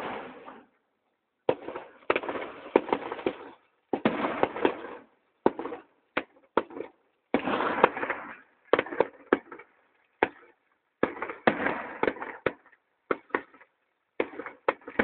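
Fireworks display: aerial shells bursting in quick succession, sharp bangs followed by crackling, in clusters a second or so long with short gaps between them, picked up by a phone microphone.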